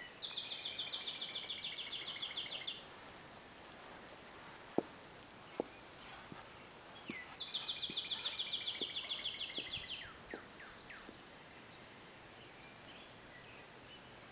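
A songbird sings a fast, high trill of rapidly repeated notes twice, each lasting about two and a half seconds. Between and after the trills, boot heels click on stone steps in an even walking rhythm; the two sharpest clicks come about five seconds in.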